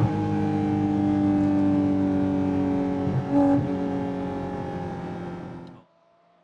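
Porsche GT4 RS's naturally aspirated flat-six through a Fi-Exhaust valved muffler and catless downpipe, with the exhaust valves open, heard from inside the car. It runs hard with a break in the note at the start and another about three seconds in, like gear changes, then fades and cuts off suddenly near the end.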